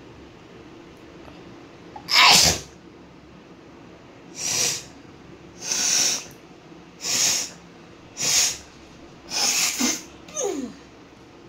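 A woman sneezing repeatedly, about seven sharp sneezes a second or so apart. The first, about two seconds in, is the loudest, and the last trails off in a short falling voiced sound.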